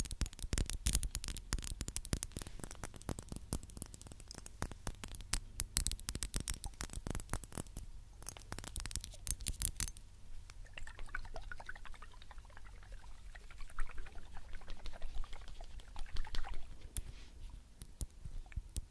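Fingernails tapping and scratching on a glass Ferragamo Signorina perfume bottle held close to the microphone. The taps come quick and dense for about the first ten seconds, then sparser, mixed with light scratching.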